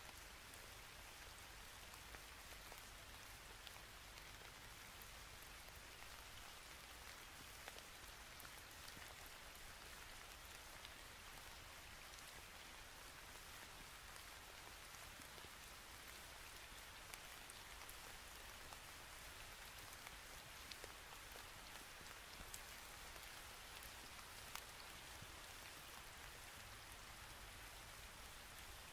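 Near silence: a faint steady hiss with a few scattered faint ticks.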